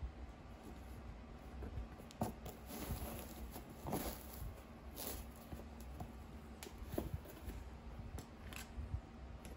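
Handling noise from a pair of New Balance 550 canvas sneakers being turned and flexed in the hands: soft rustling with scattered light taps and clicks, a few sharper ones spread through.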